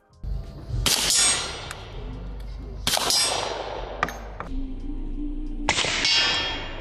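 Suppressed 9 mm Glock pistol fired three times, about two to three seconds apart; each shot is a sharp, clanging report that rings off over a second or more.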